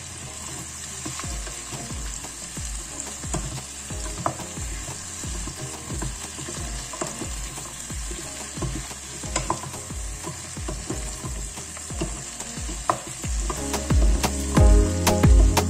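Pumpkin cubes sizzling in hot oil in a stainless steel pot while a wooden spoon stirs them, scraping and knocking against the pot; it gets louder near the end.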